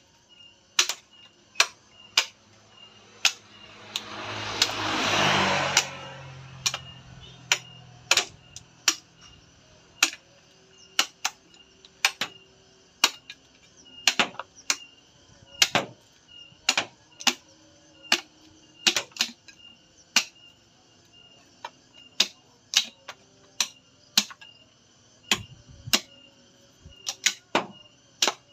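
Sharp, repeated knocks of a large knife striking the hard shell of a mature coconut, about one or two a second, cracking the shell off the flesh. A brief swell of rushing noise with a low hum peaks about five seconds in.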